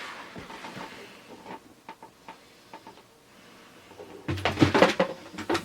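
Cardboard toy box being handled: a few faint taps and rustles, then a burst of louder knocks and scraping near the end as the box and its flaps are moved.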